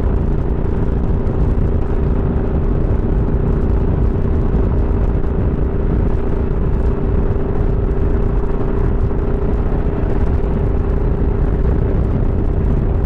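Wind rushing over a helmet-mounted microphone at highway speed, with a motorcycle engine running steadily underneath at a constant pitch.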